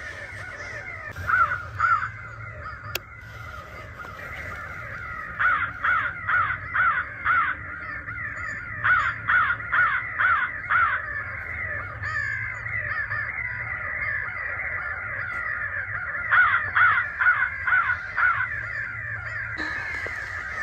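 Crows cawing in a dense, steady chorus, with three runs of five or six loud caws at about two or three a second standing out above it.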